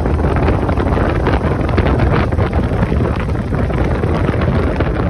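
Heavy wind rush buffeting the microphone of a motorcycle moving at road speed, with the motorcycle's engine running underneath.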